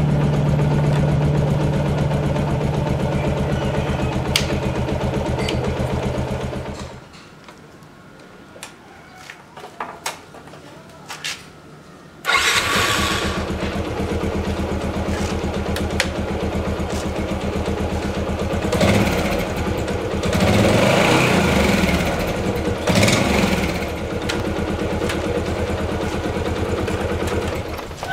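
Yamaha Jupiter MX single-cylinder four-stroke motorcycle engine idling. It is switched off about seven seconds in, then restarted about five seconds later and runs on at idle, rising a few times.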